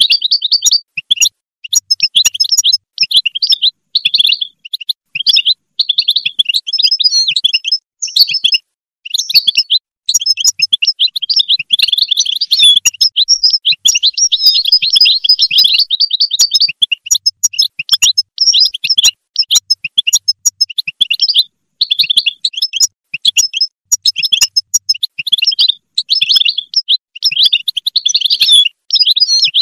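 European goldfinch singing: a long, loud run of rapid twittering phrases, broken by a few brief pauses.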